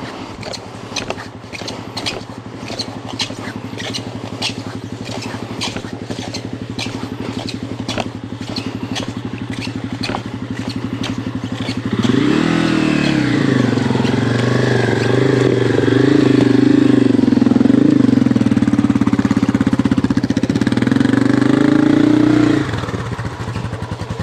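Dirt bike engine idling steadily, with light clicks about twice a second. About halfway through it revs up and runs at a higher, louder steady speed for about ten seconds, then drops back to idle near the end.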